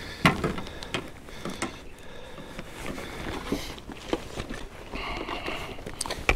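Irregular knocks, clicks and rustling from handling a landing net, a freshly caught bass and a plastic measuring board on a kayak, with a sharp knock about a quarter second in and another near the end.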